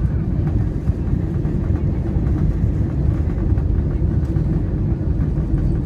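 Airbus A320 on its landing approach: a steady, loud low rumble of engine and airflow noise with no distinct events.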